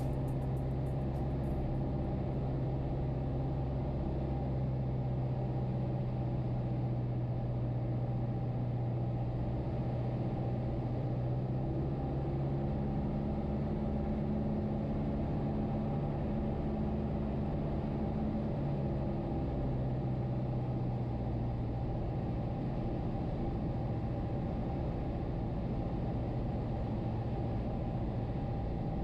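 Piper Cherokee 140's four-cylinder Lycoming engine and propeller droning steadily, heard inside the cabin during the approach. A higher tone joins for several seconds about midway, and the engine note shifts slightly soon after.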